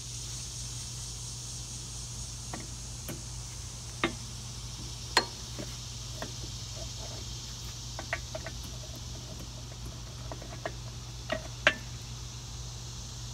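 Scattered metal clicks and knocks as a new hydraulic cylinder is handled and fitted onto a trencher's backhoe arm, the loudest about five seconds in and again near the end. Under them a steady low hum and a high insect drone.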